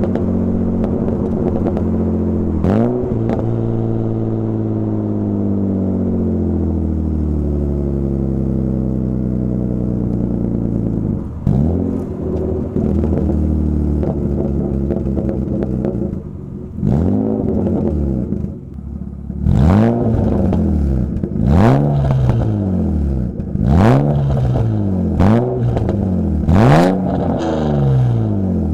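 BMW engine revving through its exhaust: a quick rev about three seconds in, the revs then sinking slowly back over several seconds, and from about twenty seconds in a run of short, sharp throttle blips roughly one a second.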